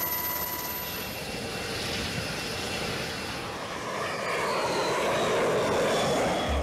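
Jet engine of the Northrop Grumman X-47B running as the drone rolls along an aircraft carrier deck: a steady roar with a high whine, which falls in pitch in the last couple of seconds as it goes past while the roar swells.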